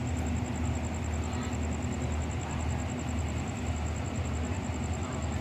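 Train running: a steady low rumble and hum.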